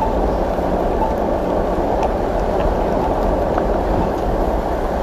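A steady, loud low rumble that holds even throughout, with a few faint ticks on top.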